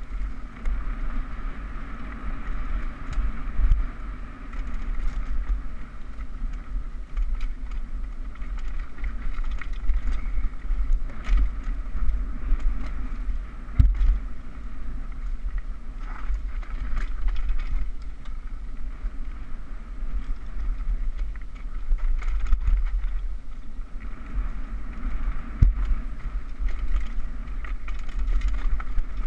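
Mountain bike riding fast down a dirt downhill trail, heard from a GoPro on the bike or rider: wind buffeting the microphone, the tyres rumbling over dirt, and the bike rattling, with sharp knocks from bumps, the loudest about 14 seconds in and again near 26 seconds.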